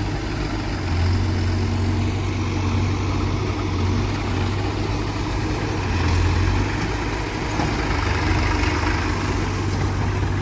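Case 851EX backhoe loader's diesel engine running steadily, its low drone swelling slightly about a second in and again around six seconds.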